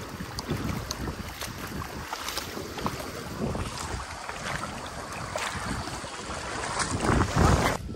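Wind buffeting a phone's microphone outdoors: an irregular low rumbling over a steady noisy rush, gusting loudest near the end and then cutting off abruptly.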